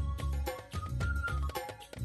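Background music with a steady low beat and a bright, plucked-sounding melody.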